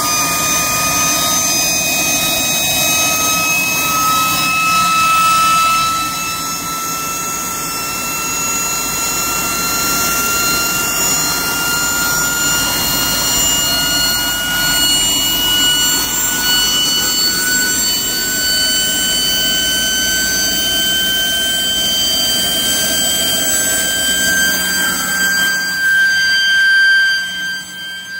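Capstone C65 microturbine running: a steady rush of air with a high whine that climbs slowly in pitch.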